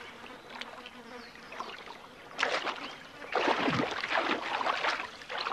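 Hippos splashing and sloshing as they move about in a pool. The water comes in two bursts past the middle, the second longer.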